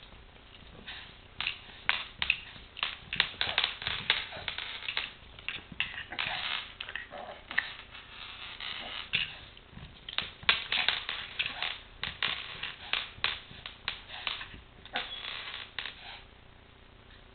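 Rapid, irregular clicking, knocking and rattling on a hard tile floor: a Chihuahua puppy's claws and a small plastic toy truck being nosed and shoved about, with a few short scraping stretches. It dies away near the end.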